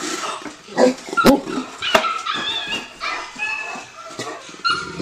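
High-pitched puppy whimpers and yips, many short overlapping cries, coming from a laptop speaker. Two sharp knocks come in the first two seconds.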